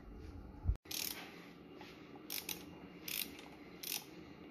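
Socket ratchet wrench clicking in short bursts on its back-strokes while turning the forcing screw of a puller on a Ford Model T transmission drum. There are about five bursts, with a short heavy thump just under a second in.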